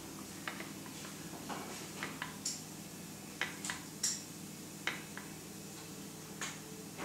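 Rose engine cutting an engine-turned pattern into a watch dial: light, irregularly spaced clicks and ticks from the cutter and machine over a steady low hum.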